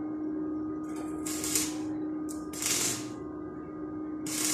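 Stick (arc) welder striking short arcs on a steel frame: three short bursts of crackling hiss, each under a second, as tack welds are laid. A steady low hum runs underneath.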